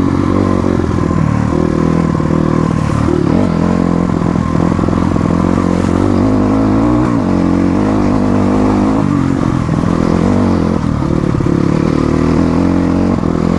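Motorcycle engine running with its pitch rising and falling as the throttle is worked.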